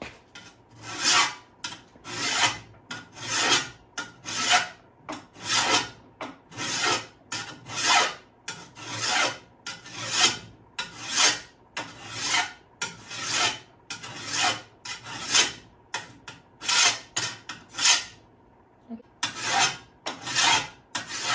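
A hand file stroked along the edge of a shovel blade to sharpen it, about one stroke a second, with a brief pause near the end.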